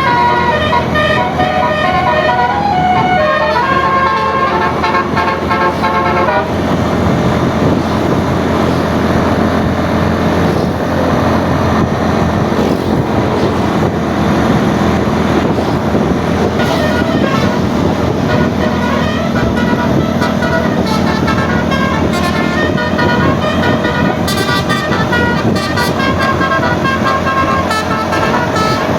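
Telolet basuri multi-tone bus horn playing a tune of quickly changing notes. It stops about six seconds in, leaving engine and road noise, and the horn tune starts again a little past the middle.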